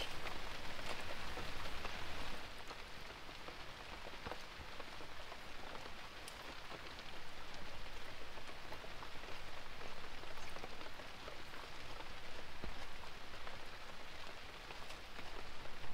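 Steady rain falling on a tarp awning over the open back of an SUV, with a few faint clicks of a utensil against a skillet.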